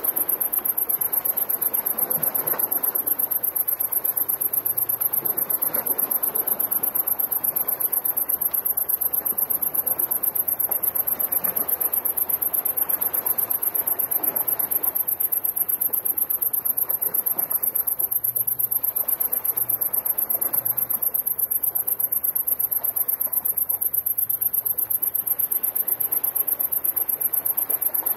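A steady, high-pitched insect trill, pulsing rapidly and without a break.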